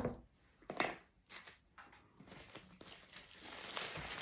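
A couple of sharp knocks on a wooden table, then the crinkling of a foil sandwich wrapper being unwrapped, growing louder from about halfway through.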